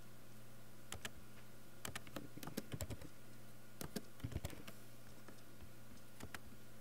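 Computer keyboard typing: irregular keystrokes in short bursts with pauses between, over a faint steady electrical hum.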